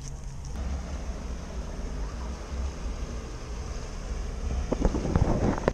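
Jet ski engine running steadily out on the lake as it crosses, a low hum under light wind on the microphone. About five seconds in come several close knocks and rustles.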